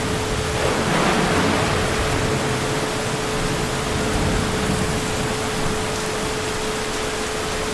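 Heavy rain falling steadily, with a faint steady tone running underneath.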